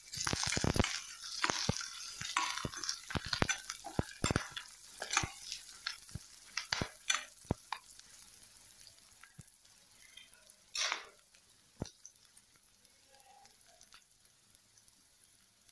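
Metal spatula scraping and clinking against a stainless steel kadai as shallots, green chillies and curry leaves are stirred, frying in oil with a sizzle. The stirring thins out a little past halfway, leaving mostly a soft sizzle with a few stray clinks.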